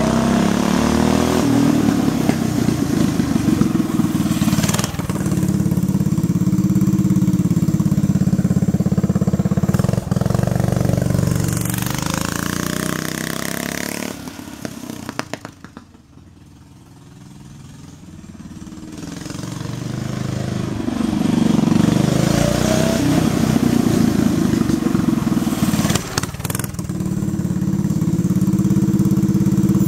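1974 Tri Sport trike's Briggs & Stratton 5 hp single-cylinder engine running through a homemade exhaust pipe, its pitch rising and falling as the trike is ridden past and revved. It fades to a distant drone about halfway through and grows loud again as the trike comes back near.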